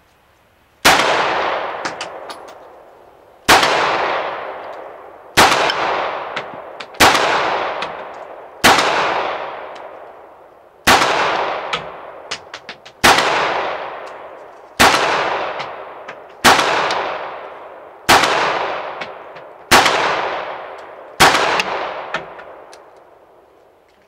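CZ-82 pistol firing 9x18 Makarov, a slow string of about a dozen single shots, one every second and a half to two seconds. Each shot echoes and dies away slowly before the next.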